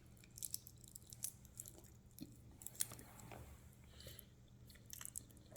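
Faint chewing of a soft, chewy fruit candy, with scattered small clicks from the mouth over a low steady hum.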